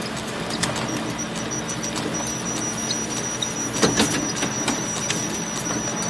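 Photocopier running: a steady mechanical whir with a thin high whine and a low hum, broken by sharp clicks, the loudest a pair about four seconds in.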